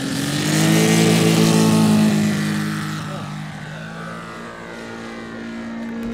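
Radial engine of a large-scale RC Yakovlev Yak-55M model opening up for takeoff: its pitch rises in the first half-second, it is loudest about one to two seconds in, then it eases off a little and runs on steadily as the plane climbs away.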